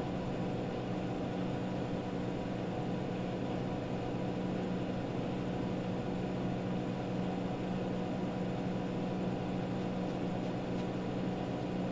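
Steady low hum with an even hiss: room tone, unchanging throughout.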